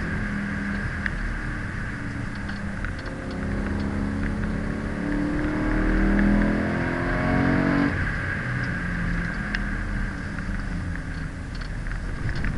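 BMW M3 E90's 4.0-litre V8 heard from inside the cabin under hard acceleration. Its pitch climbs steadily for several seconds, then drops about eight seconds in and carries on lower, over steady road and wind noise.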